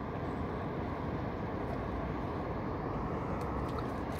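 Steady low rumbling noise with no distinct events, strongest in the low and middle range.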